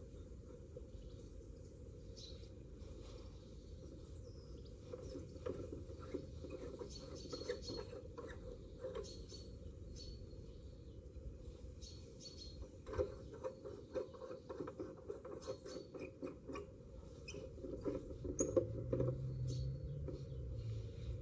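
Irregular small clicks, taps and scratching of hands handling small parts and fittings, busiest through the middle and later part; a low steady hum comes in near the end.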